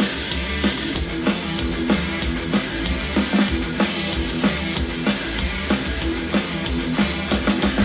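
Rock music with a steady drum-kit beat and guitar, played back through a JBL portable Bluetooth speaker as a sound test.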